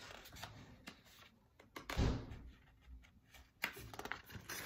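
Pages of a picture book flipped quickly by hand, quiet paper rustling and swishing with a few light clicks, and a soft thump about two seconds in as the book is handled.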